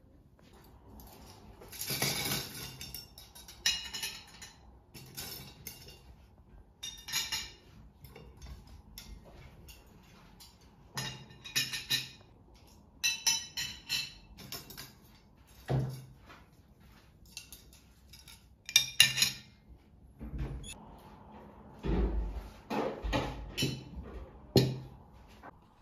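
Ceramic plates and stainless-steel forks and knives being set out on a cloth-covered table: irregular metallic clinks of cutlery laid onto the plates, with a few duller knocks of heavier serving plates being set down near the end.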